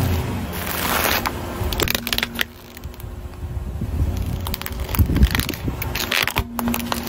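A car tyre rolling slowly over small objects and crushing them: a stretch of dense crackling, then sharp cracks and crunches as harder things break under the wheel.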